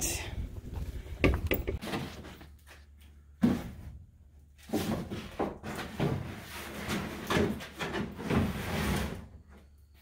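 Irregular knocks, bumps and rustling scrapes as a folded pool is shoved up onto wooden garage rafters.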